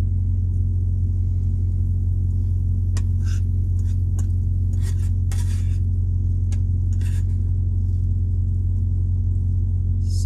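Steady low rumble of the idling truck, the loudest thing throughout, with a few short scrapes and clinks of a utensil against a skillet and plate as eggs are scooped out.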